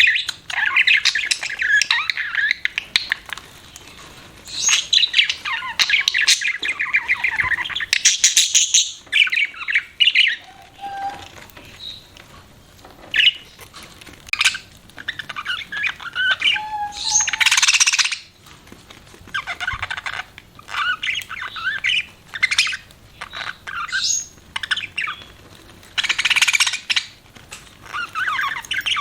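Budgerigars chirping and chattering in irregular bursts of one to a few seconds, with short gaps between.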